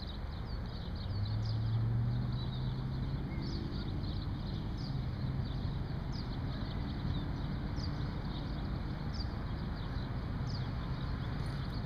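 Open-air ambience: a low hum like distant traffic, swelling about a second in and then easing, with short high chirps every second or so.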